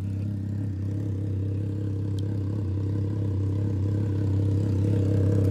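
Triumph Trident 660's three-cylinder engine idling steadily through a short aftermarket exhaust, slowly getting a little louder toward the end.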